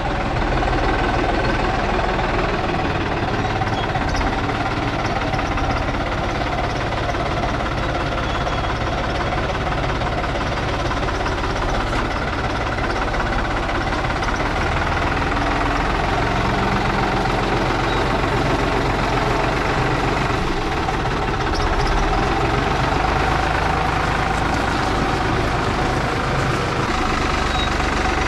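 New Holland utility tractor's diesel engine running steadily while the tractor drives and carries a pallet of firewood on its front-loader forks.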